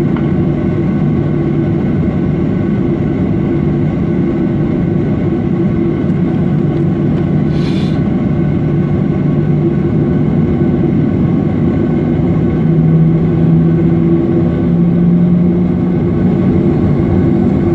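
Jet airliner's engines running at idle, heard inside the cabin as a steady hum with a low drone. The drone grows a little louder about twelve seconds in.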